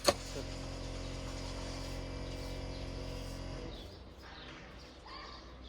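A sharp click, then a steady low hum that cuts off after about three and a half seconds; birds chirp faintly near the end.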